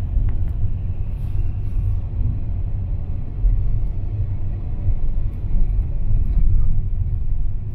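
Car driving on a mountain road, heard inside the cabin: a steady low rumble of engine and tyre noise.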